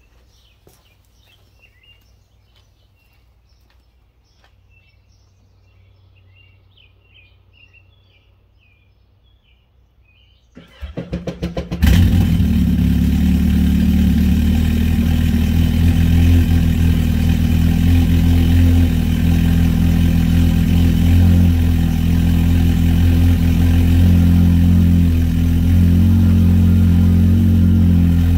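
Faint bird chirps, then a 2020 Yamaha FX SVHO's supercharged four-stroke engine cranks for about a second and a half and catches about ten seconds in. It then idles loudly and steadily on its trailer, running out of the water with a garden hose at the flush fitting.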